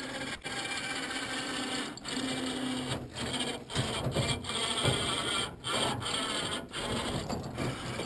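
12-volt ATV electric winch reeling in its cable under heavy load as it drags a log, a continuous grinding, rasping run with a low motor hum and several brief breaks.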